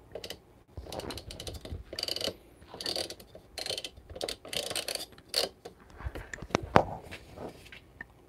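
Plastic grind-setting collar and hopper of a Solis Scala Plus burr grinder being turned by hand, ratcheting and clicking through its step detents in a series of uneven scraping bursts, with one sharper click near the end.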